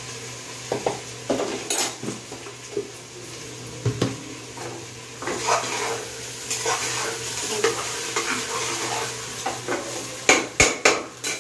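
Spatula scraping and stirring rice as it fries in oil in a pressure cooker, over a light sizzle, with a few sharper knocks against the pan near the end. The rice is crackling as it roasts, the sound the cook waits for as the sign the rice is fried enough for the biryani.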